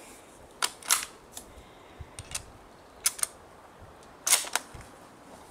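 Bolt action of a Mauser Karabiner 98k rifle being worked by hand: a series of sharp metallic clicks and clacks, several in close pairs.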